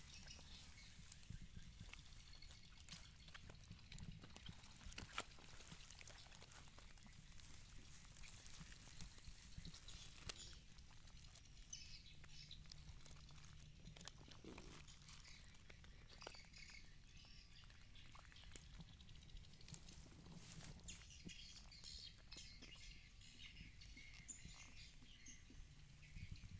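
Near silence: faint outdoor ambience with faint bird chirps and occasional soft clicks.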